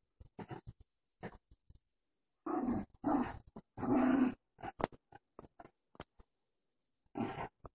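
Morkie (Maltese–Yorkshire terrier mix) growling in three short bursts about halfway through and once more near the end. Between the growls come quick scratches and rustles of the bedding as it digs under the blankets.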